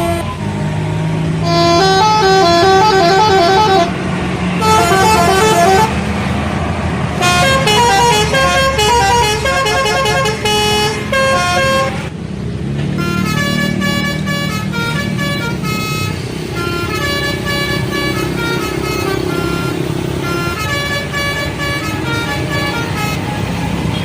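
Bus telolet horns, multi-tone air horns playing quick tunes of short stepped notes, one run after another. After a short break about halfway through, a different tune plays, over the low, steady rumble of a bus engine.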